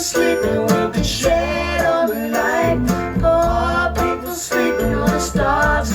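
A pop song played back on a hi-fi system through KEF Q300 speakers: guitar and bass carry on in a steady groove between sung lines.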